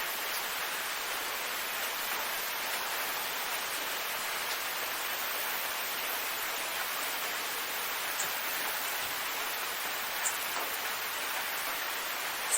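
Steady rain falling, an even hiss with a few sharp drop ticks standing out in the second half.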